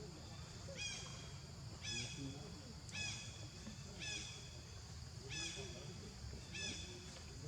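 A kitten mewing six times in a row, short high cries about one a second, over a steady chirring of insects.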